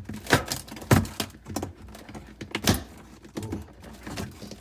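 Irregular sharp clicks and knocks, roughly a dozen over four seconds, from hands working loose plastic parts inside a refrigerator's freezer section.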